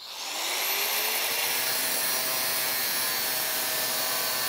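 Angle grinder spinning up with a rising whine, then cutting steadily through a steel drill bit with a dense, even grinding hiss as it shortens the bit.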